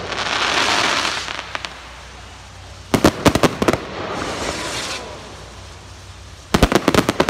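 Fireworks bursting: a crackling hiss of sparks at first, then a rapid volley of sharp bangs about three seconds in followed by more hiss, and another volley of bangs near the end.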